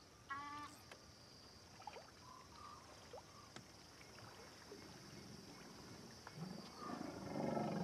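Faint night ambience at a waterhole: a steady high hum, with a single short honking bird call right at the start, the last of an evenly spaced series. A few faint chirps and ticks follow, and low sounds grow louder near the end.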